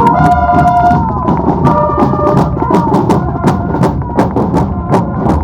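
Military band of bugles and drums playing a march: sustained brass notes in the first second and again around two seconds in, over steady, frequent drum strokes.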